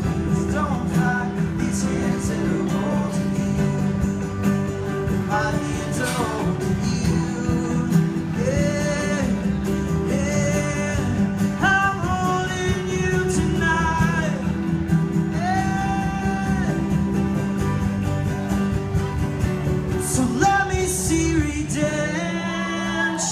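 Live band playing with electric and acoustic guitars over a steady low accompaniment, a singer holding long, wavering sung notes from about eight seconds in.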